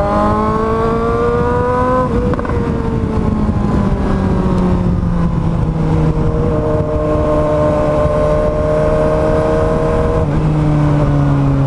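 Motorcycle engine running loud through an Akrapovič exhaust with its end tip removed, under way: the note rises as it accelerates for about two seconds, then drops at a gear change into a long, steady cruise, and drops again near the end.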